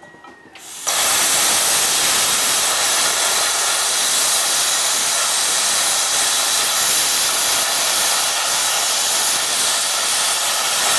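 Tenya Cut 50 air plasma cutter cutting metal. The arc and compressed air start about a second in, rising quickly to a loud, steady hiss.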